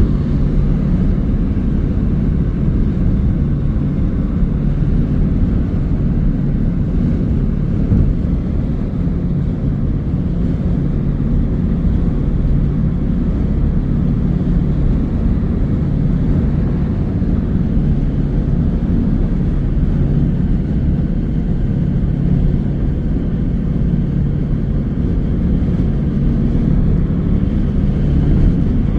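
Steady road and engine drone of a car driving at an even speed, heard from inside the car, with no sudden events.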